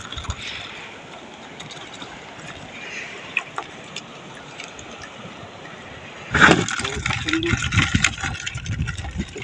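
Water lapping quietly against a small wooden boat. About six seconds in comes a sudden burst of splashing, dripping and knocking as the wet scoop net is handled over the boat's side.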